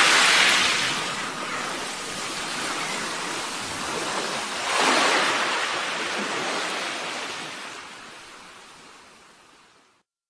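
Ocean surf: two waves wash in about five seconds apart, each swelling into a broad hiss and draining away, and the sound fades out near the end.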